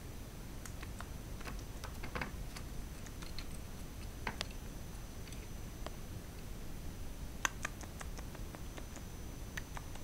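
Cockatiel clacking its beak: irregular sharp clicks, scattered singly and in a few quick clusters, the loudest about seven and a half seconds in.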